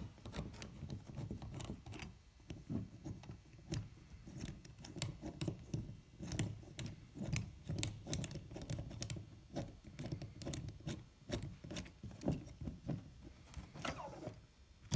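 Bolts being unscrewed by hand tool from a filling machine's air cylinder: a long run of small, irregular metallic clicks and taps over low handling noise.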